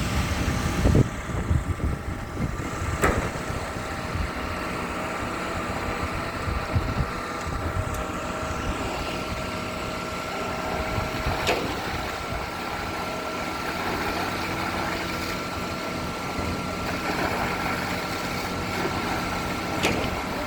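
Heavy diesel engine of concrete plant running steadily with a low hum and a thin steady whine above it, broken by a few sharp knocks.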